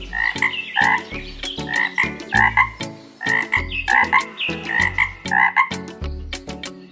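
A frog croaking over and over, two to three short croaks a second, over background music with a steady beat; the croaks stop near the end.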